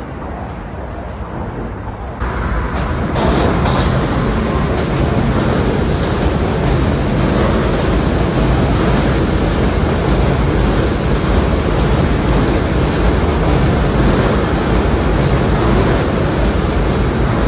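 New York subway train running over a steel bridge: a steady, loud rumble and rattle of wheels on rails. It gets louder about two to three seconds in and then holds.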